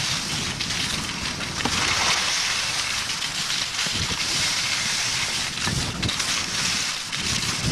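Wind rushing over a camcorder microphone while skiing downhill, with the steady hiss of skis sliding over snow.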